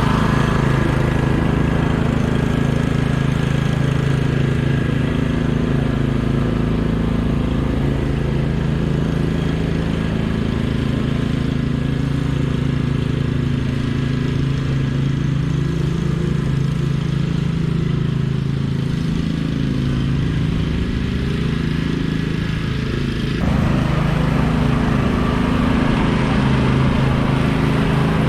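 Troy-Bilt TB30R riding lawn mower's engine running steadily while mowing, getting a little louder and brighter about 23 seconds in.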